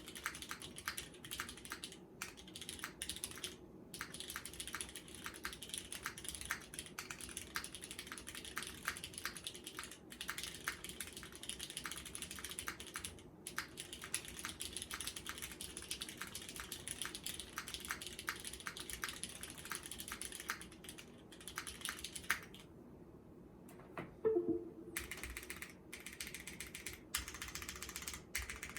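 Typing on a custom mechanical keyboard with an aluminum plate, vintage Cherry MX Black linear switches lightly lubed with Tribosys 3204 and GMK keycaps: fast, irregular keystroke clicks, recorded through an iPhone microphone. Near the end the typing stops for about two seconds, broken by one louder knock, then resumes.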